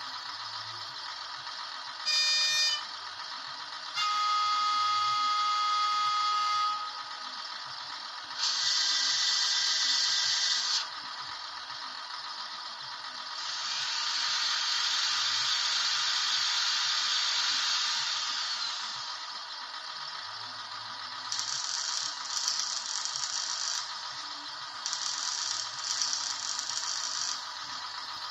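Sound effects from the onboard sound decoder of a Märklin H0 model Robel track maintenance vehicle, played through its small loudspeaker over a steady hiss: a short horn toot about two seconds in and a longer horn blast from about four seconds, then two stretches of loud hissing noise and, near the end, irregular rattling bursts.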